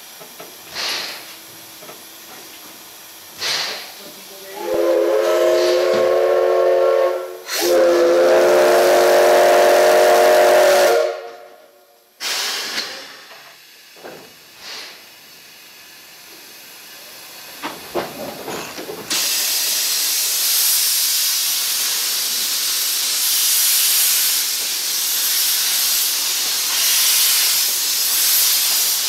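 Steam locomotive whistle sounding two blasts about five seconds in, each a chord of several tones, the second longer and louder. From about nineteen seconds in, a loud steady hiss of steam blowing out beneath the locomotive's cylinders.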